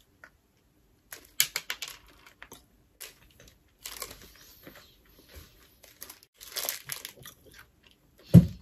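Plastic candy wrapper of a Nerds Rope crinkling in irregular bursts as it is handled, with a short thump near the end.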